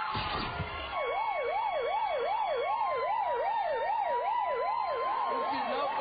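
Siren sound effect: a fast up-and-down yelp, about two and a half swoops a second, over a steadier held tone, starting about a second in.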